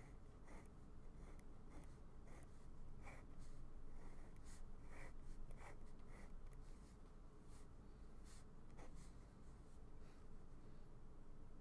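Faint scratching of a Muji metal pen on sketchbook paper in a run of short, quick strokes as cube edges and ellipses are drawn.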